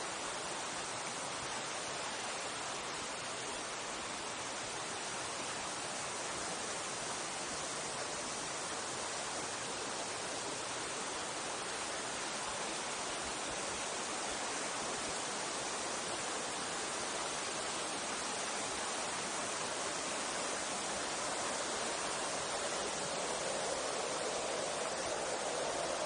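Mountain stream rushing over rocks and small cascades: a steady wash of water that grows a little louder near the end.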